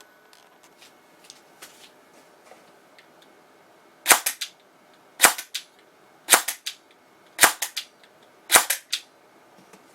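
Airsoft electric gun (AEG) fired in semi-auto: five single shots about a second apart, each a quick cluster of mechanical clacks from one gearbox cycle. Faint small ticks come first.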